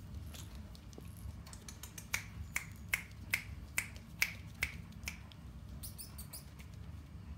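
A run of about eight finger snaps, evenly spaced at roughly two and a half a second, starting about two seconds in and stopping about two seconds later.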